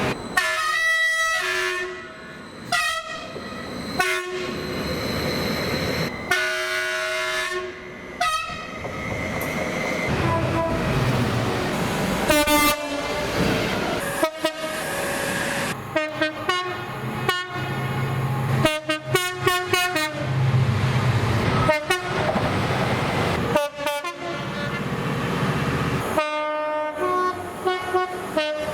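Train horns sounding in a rapid run of short clips cut abruptly one after another, every second or two, with train rumble and wheel clatter on the rails between the horn blasts.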